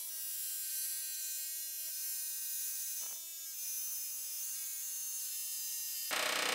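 Air chisel hammering through the thin sheet steel of a 1965 Mustang's rusted frame rail, a steady buzz that breaks briefly about three seconds in and turns louder and harsher near the end.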